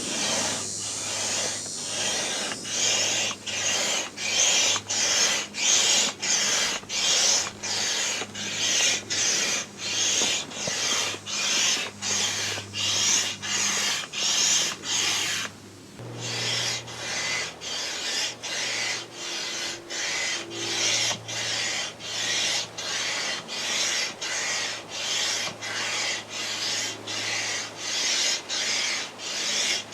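Manual air pump inflating a large vinyl inflatable toy: quick, even strokes, about two a second, each a rasping rush of air. The pumping pauses briefly about halfway through, then carries on at the same pace.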